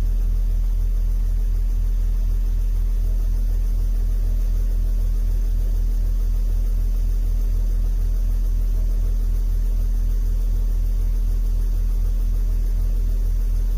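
Mercedes OM642 3.0 V6 common-rail diesel idling steadily, with a regular pulsing beat and a rattle that the owner is tracing to the high-pressure fuel pump or the injectors.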